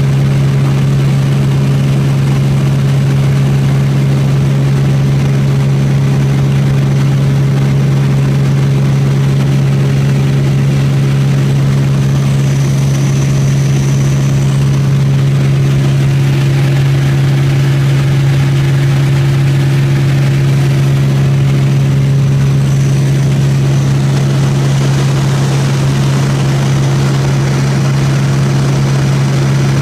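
Fuji LM-2's 340 hp Lycoming IGSO-480 supercharged six-cylinder engine and propeller in cruise, heard from inside the cabin as a loud, steady, even drone with no change in power.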